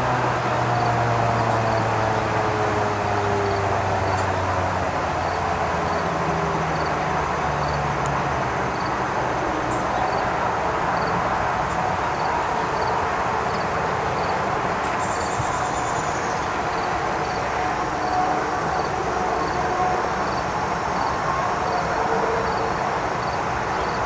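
Federal Signal 2001-SRN electromechanical outdoor warning siren winding down at the end of its test, its falling tone fading out over the first few seconds. After that comes a steady rushing background noise.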